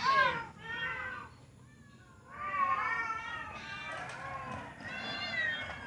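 Cats meowing, a run of calls one after another, the loudest at the start, with a short lull after about a second and a half.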